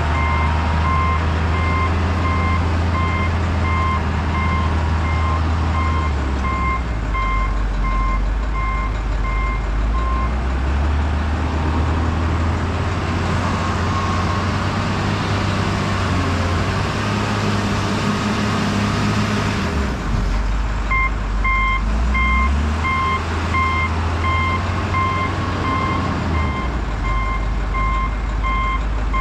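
Heavy diesel truck's engine running while its reversing alarm beeps steadily as it backs up. The beeping stops for about ten seconds midway, while the engine note shifts and grows busier, then starts again.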